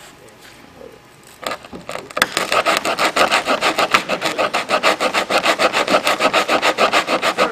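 Hand sanding of cured smoothing compound on the edge of an MQ-1B Predator's wing: quick, even back-and-forth rasping strokes that start about a second and a half in and grow louder. The sanding works the filler down to match the wing's contour.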